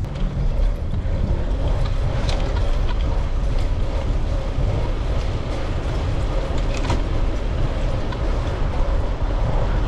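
Steady wind rumble on a bike-mounted action camera's microphone while cycling, heaviest in the low end, with a few faint clicks scattered through.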